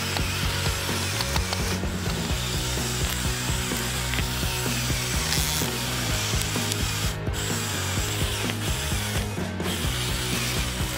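Electric motors and plastic Technic gear train of a brick-built Jeep Wrangler crawler running steadily under load as it drives over stones, a continuous mechanical gear noise.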